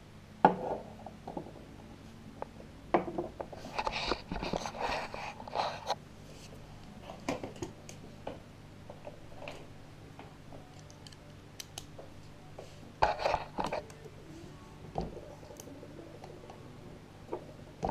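Metal engine parts and hand tools clinking and knocking on a wooden table, with a sharp knock about half a second in. Two runs of quick clicking follow, the second near the end, from a ratchet wrench working on the engine's bolts.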